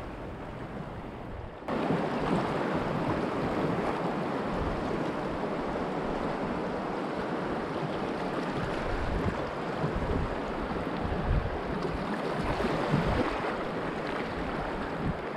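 Swift river water rushing and splashing around a kayak, with wind buffeting the microphone. The sound gets suddenly louder just under two seconds in.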